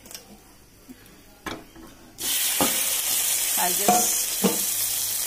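Cooked dal and vegetables hitting a hot tadka of fried curry leaves and drumstick leaves. A loud sizzle breaks out suddenly about two seconds in and keeps going, with a few metal clinks against the pan. Before it there are only a few faint knocks.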